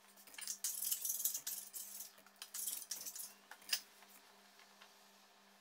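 Dough scraper scratching and scraping across a floured wooden worktop while a sourdough loaf is shaped, in a run of irregular strokes, with one sharp click about three and a half seconds in; then only a faint steady hum.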